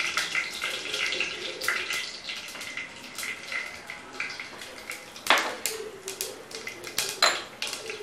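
Mustard seeds sizzling and crackling in hot sesame oil in a pressure cooker, with scattered sharp pops and two louder pops about five and seven seconds in: the seeds starting to splutter as the tempering begins.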